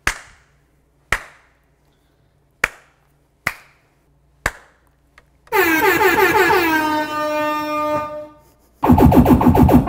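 Five sharp hand claps about a second apart, followed by an air-horn sound effect played loudly through the LG OJ98 party speaker, its pitch dropping and then holding for about three seconds, and a fast pulsing burst from the speaker near the end.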